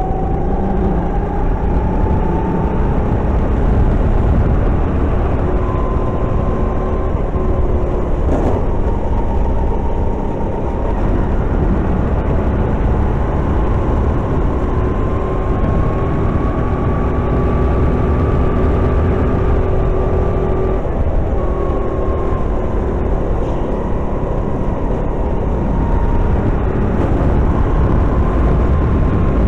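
Kart engine running hard around the track, its pitch rising and falling with the throttle through the corners, over a steady loud low rumble.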